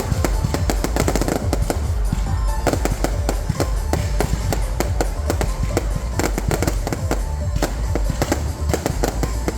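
Fireworks display: dense, rapid crackling bursts over continual deep booms, many shells going off at once, with music underneath.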